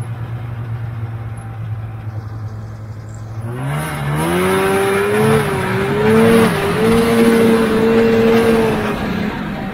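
Vintage snowmobile's two-stroke engine idling, then revving up about three and a half seconds in. It holds high revs with a wavering pitch for several seconds and drops back toward idle near the end.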